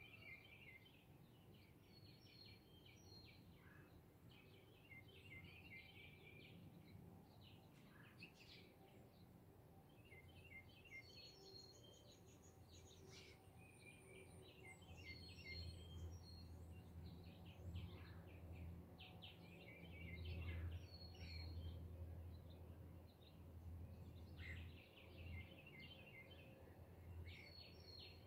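Faint dawn birdsong: several songbirds chirping in short repeated phrases. A low distant rumble swells in the second half and is loudest about two-thirds of the way through.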